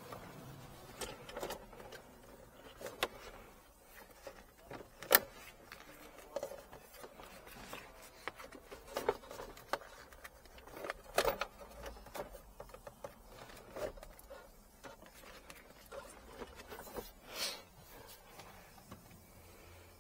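Irregular clicks, taps and rustles of hands handling the plastic trim around the gear selector and center console of a car interior. The sharpest click comes about five seconds in, with another cluster of knocks near the middle.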